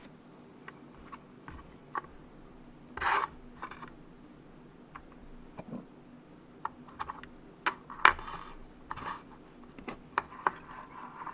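Fingers handling a bamboo fly rod section at its thread-wrapped guide: scattered small clicks and taps with short scratchy noises, the loudest about three seconds in and about eight seconds in.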